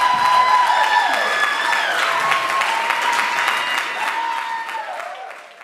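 Audience applauding, with a few drawn-out cheering voices above the clapping, fading out near the end.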